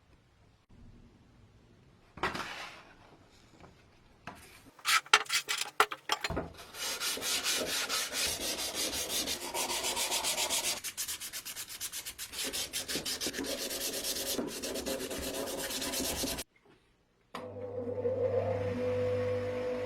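Sanding by hand, a few scattered scrapes and then quick, continuous rubbing strokes that stop suddenly. Music starts shortly after.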